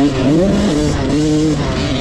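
Motocross bike engine heard from on board while riding: the revs rise and fall about half a second in, then hold a steady note.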